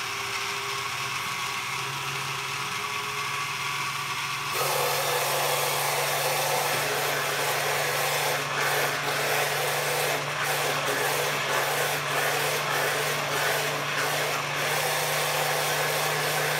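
Countertop blender running, blending a liquid leche flan mixture of egg yolks and condensed and evaporated milk. Its motor runs steadily, then about four and a half seconds in it steps up to a higher, louder speed and keeps going.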